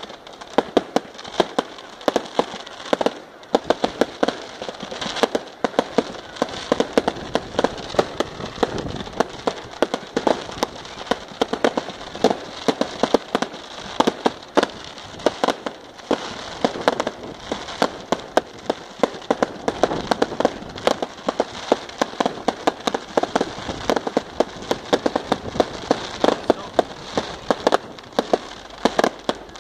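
Aerial fireworks going off in rapid, continuous succession: many sharp bangs, several a second, over a steady crackle of bursting shells.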